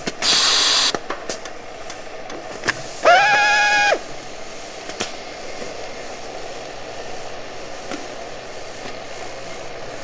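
Electric hand drill run in short bursts: a loud, hissy burst lasting under a second at the start, then about three seconds in, the motor spins up with a quick rise in pitch to a steady high whine for about a second and cuts off sharply. A low steady machine noise runs underneath.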